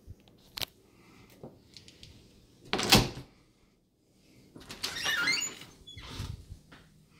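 Interior doors being opened and shut: a click, then a loud bump about three seconds in, then a squeaking, scraping stretch and another bump near the end.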